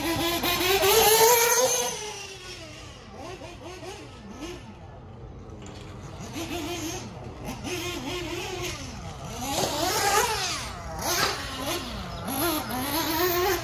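1/8-scale nitro RC buggy engine (HB Racing D819RS) revving up and down over and over as it laps a dirt track. It is loudest about a second in as it passes close, and swells again near ten seconds.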